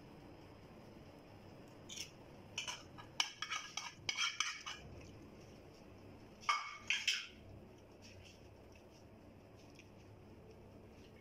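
Metal spoon clinking and scraping against a metal baking tray while spreading topping over pizza dough: a run of quick clinks about two seconds in, then a shorter burst a couple of seconds later.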